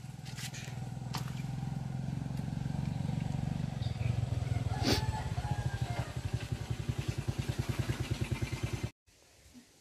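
An engine running close by, likely a motorcycle's, growing louder over the first few seconds and then beating evenly at about eight pulses a second. A single sharp click comes about halfway through, and the sound cuts off suddenly near the end.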